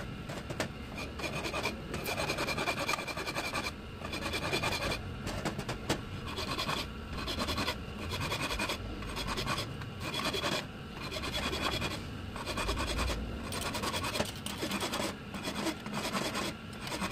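Flat hand file rasping back and forth over the weld build-up on an engine crankcase half, about one stroke a second, to file the welded repair flat.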